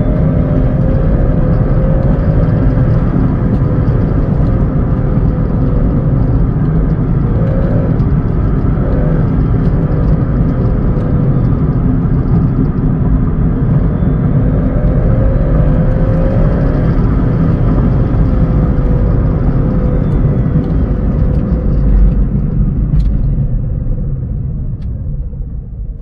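Inside the cabin of a 2015 electric Smart car on the move: a loud, steady low rumble from the drivetrain with a faint whine that wavers up and down, easing off near the end as the car slows. It is the strange torque-related thumping noise that the owner first took for a bad CV axle.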